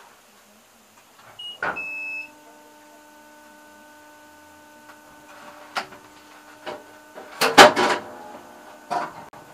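Stopped tram's cab equipment: a click and a short high beep, then a steady mechanical hum for about five seconds, then a loud clatter near the end.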